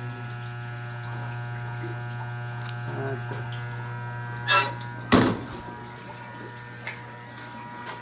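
Steady electrical hum with water running as a commercial ice machine dumps its water at start-up. About four and a half seconds in comes a short clatter, then a sharp metal bang at the metal breaker panel.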